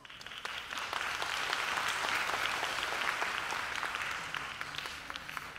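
Audience applauding: the clapping builds over the first second, holds, then dies away near the end.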